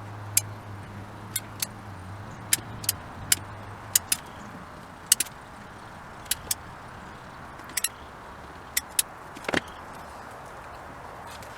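Irregular sharp clicks and clacks of hand tools and clamps being worked, about fifteen in all, over a steady outdoor background. A low hum fades out after the first few seconds.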